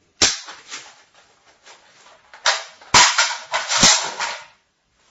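Type 95 bullpup rifle firing in a small room: one sharp shot, then about two seconds later a quick run of several more. Each shot leaves a ringing echo off the walls.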